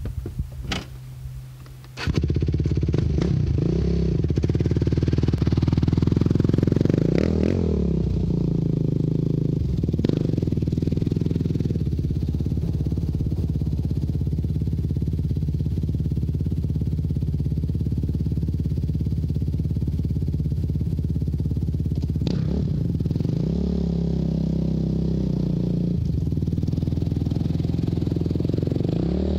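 2004 Yamaha YFZ450 quad's single-cylinder four-stroke engine running, starting about two seconds in, with a steady drone broken by several revs up and back down.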